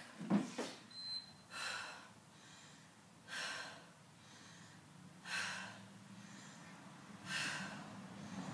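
A woman breathing hard from exercise, a short forceful breath about every two seconds as she does a dumbbell chest press lying on a step platform. A couple of thuds of feet on the step come just after the start.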